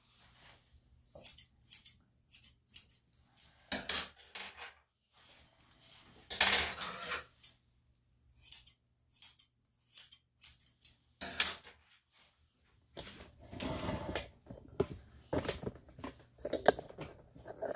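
Grooming scissors snipping a Lhasa Apso's coat around the ear and face, in quick runs of short, sharp metallic snips, several a second. Near the end, softer rustling and a few knocks of handling.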